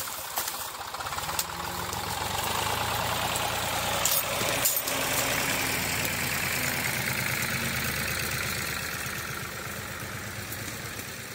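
Zetor 3011 tractor's diesel engine running steadily at idle, growing louder through the middle and fading toward the end, with one sharp knock about four seconds in.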